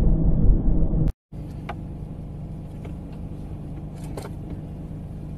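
Car cabin noise recorded by a dash cam. First the loud, steady rumble of engine and road noise while driving, which cuts off abruptly about a second in. Then a quieter, steady hum of a car idling, with a few faint clicks.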